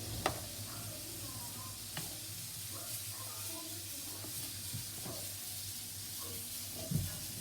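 Chicken wings deep-frying in hot oil in a pot: a steady sizzle, with a few sharp knocks, the loudest just after the start and near the end.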